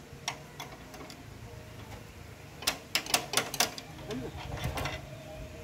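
Sharp metallic clinks and taps of a tool working on metal at the engine mount of a homemade bandsaw mill: two single clinks at the start, then a quick run of about five clinks around the middle and a few more near the end.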